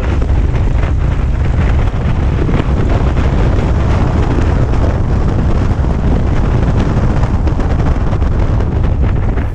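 Cessna 182 engine and propeller running steadily, picked up by an exterior camera with heavy wind buffeting on its microphone.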